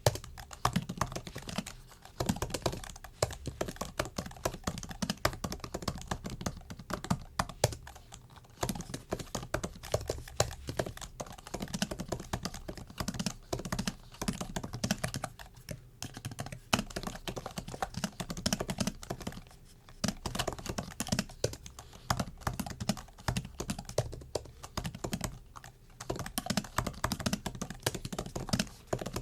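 Typing on a MacBook keyboard: a rapid, continuous run of light key clicks, with a few brief pauses.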